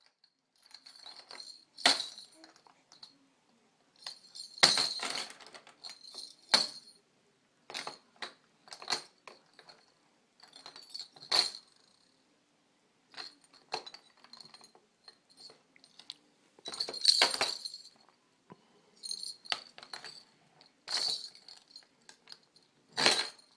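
Sleigh bells shaken in short, irregular bursts of high-pitched jingling, with brief pauses between the shakes.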